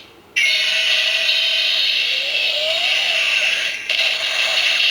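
Kamen Rider Necrom DX Mega Uloder bracelet toy playing its electronic finishing-move sound effect through its small speaker: a loud, buzzy synthetic tone with a brief rising glide in the middle. It starts just after a short gap and breaks off for a moment near the end.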